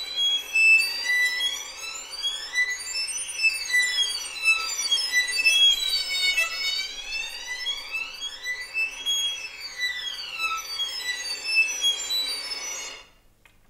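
Violin natural harmonic glissando on the E string. A light finger slides up and down the string under a light flautando bow, so the natural harmonics sound one after another in a high series of rising and falling pitches. There are several slow sweeps up and down, and the sound stops shortly before the end.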